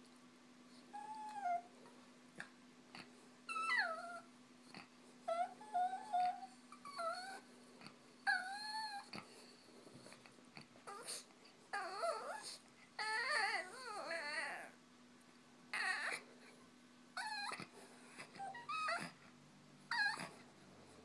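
A small Chihuahua-type dog whining in a long string of short "talking" calls, each bending up and down in pitch. A little past the middle the calls run together into a longer, wavering whine.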